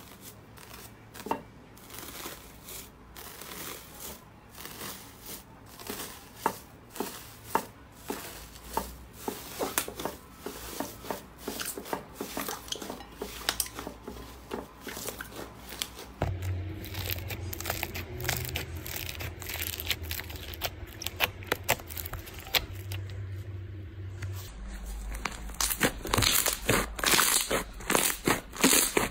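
Hands pressing and kneading slime, with metallic foil crinkling and tearing over it and many sharp little pops and crackles. Later, soft white slime is squished and pulled, and the crackling comes faster and louder.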